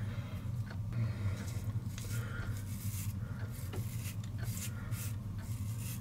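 Five-blade cartridge of a Gillette Labs heated razor scraping through lathered stubble in a series of short, slow rasping strokes, over a steady low hum.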